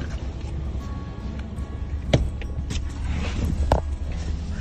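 Car engine idling with a steady low rumble, heard from inside the back seat, with a few sharp knocks and rustles as a passenger settles in with a bag.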